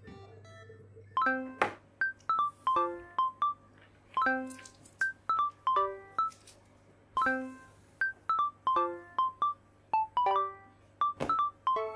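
Light background music: short chiming notes in a bright melody, the phrase repeating about every three seconds, coming in about a second in.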